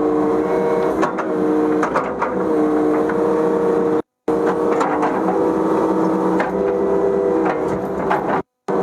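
Kubota KX080-3 excavator running under working load: a steady engine and hydraulic tone whose pitch shifts slightly, with scattered knocks. The sound cuts out completely for a moment about four seconds in and again near the end.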